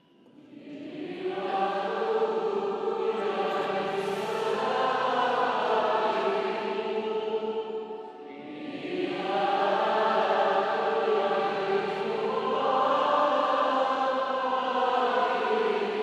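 Female psalmist singing a psalm verse in two long phrases, swelling in from near silence, with a brief dip about halfway through.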